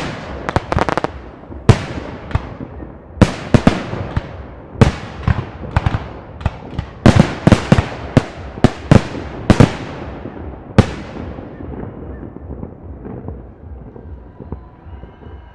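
Park fireworks shells bursting in quick succession, each sharp bang followed by a rolling echo. The bangs stop about eleven seconds in, and the echo fades away.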